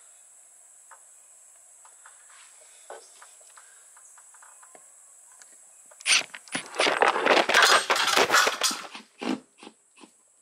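A few faint handling clicks, then about six seconds in some three seconds of loud, irregular clattering and knocking, ending in a single thump: the phone that is recording falls to the ground and a handful of screws drop.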